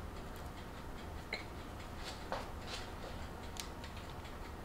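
A few faint, irregularly spaced light clicks and taps of kitchen handling around a baking tray of cookie dough, over a low steady hum.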